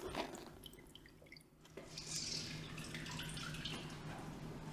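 Water dripping and splashing in a kitchen sink as goalkeeper gloves are washed and worked by hand, with a steadier splashing from about two seconds in.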